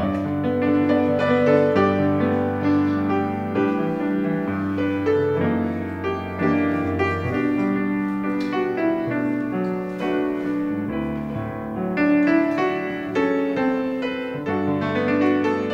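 Instrumental piano music: chords and a melody struck over held bass notes.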